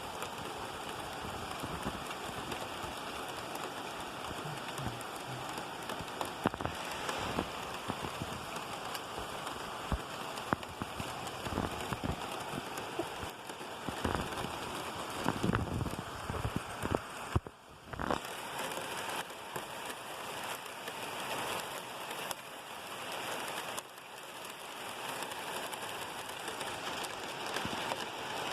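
Steady rain falling, with individual heavier drops striking close by throughout. It dips for a moment about two-thirds of the way through.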